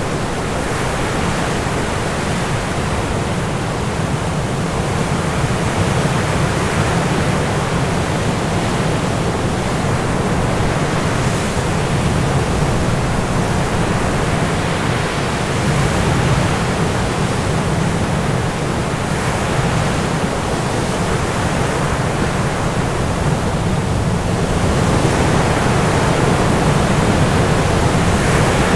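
A steady, dense rushing noise with a deep rumble underneath, swelling a little near the end.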